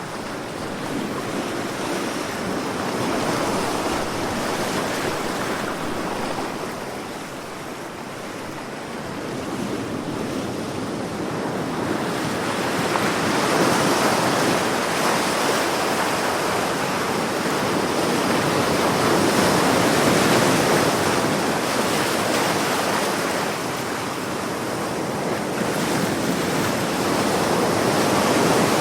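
Sea waves breaking and washing on the shore in slow, continuous swells, each surge rising and falling over several seconds.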